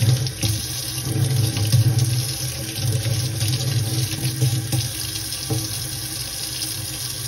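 Tap water running steadily into a stainless steel sink, splashing over a makeup brush and hands as the brush is rinsed out.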